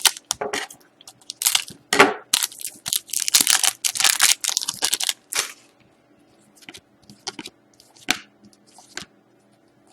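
Crinkling and tearing of a trading-card pack wrapper being opened and crumpled: a dense run of sharp, noisy rustles for about five seconds, then a few sparser clicks and rustles.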